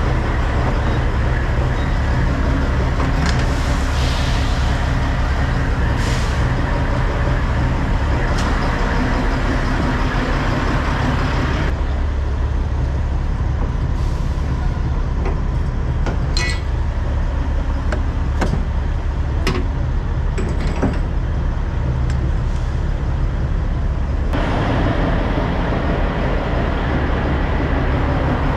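Semi-truck's diesel engine running with a steady low hum under an even hiss. From a little before halfway until near the end the hiss drops away, leaving the engine hum and a few faint clicks.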